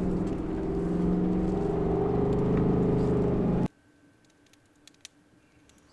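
A vehicle engine running under way, its pitch slowly rising, which cuts off abruptly a little over halfway through. A faint steady hum and a couple of small clicks follow.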